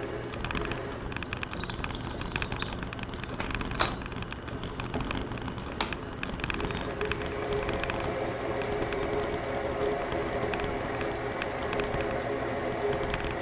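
Metal-cutting machine tool running with its bit cutting into metal: a steady high whine over continuous fine chatter, with one sharp click about four seconds in.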